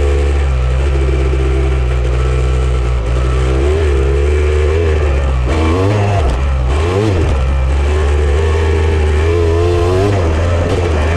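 Off-road vehicle engine running under a steady low drone, revving up and down a few times as it climbs and eases off over the terrain.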